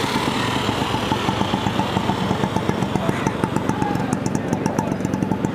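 Small engine of an auto-rickshaw running close by, a fast, even putter, over general street-traffic noise.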